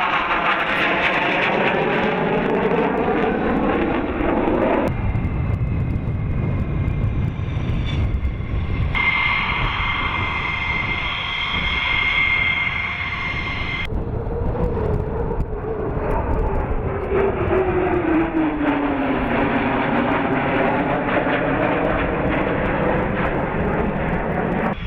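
Fighter jets' turbofan engines, heard in separate passages that break off abruptly about five and fourteen seconds in. First and last, a jet runs loud as it passes, its sound sweeping down and back up in pitch. In between, a lower rumble gives way to the steady high whine of a jet engine at low power, as when taxiing.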